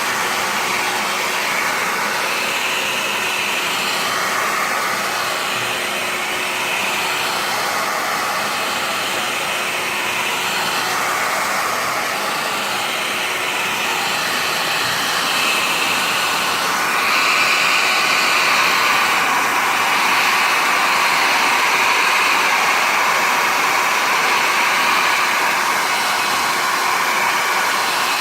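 Hair dryer blowing steadily, its rushing tone shifting as it is moved around, a little louder from just past halfway. It is heating the phone to soften the adhesive before prying it open.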